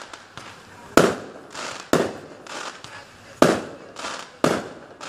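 Aerial fireworks shells bursting: four sharp bangs at uneven intervals of about one to one and a half seconds, each trailing off in an echo, with fainter pops in between.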